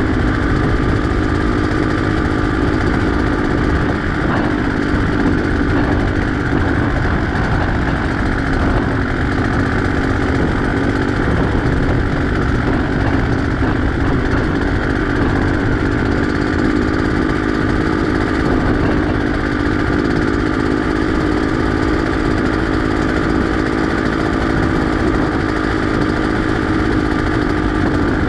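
Beta X-Trainer 250's two-stroke single-cylinder engine running at a steady speed, loud and even with no change in pitch.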